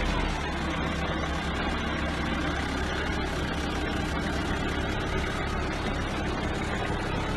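Forklift engine running steadily at a low, even pace.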